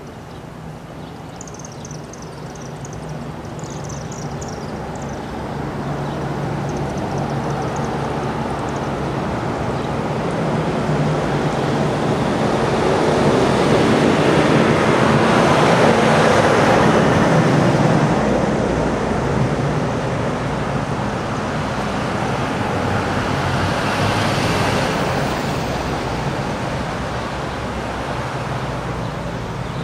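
Traffic passing on a town street: cars and a pickup truck go by, their tyre and engine noise swelling to a peak about halfway through and again a little later, over a steady low engine hum. A few faint high chirps sound near the start.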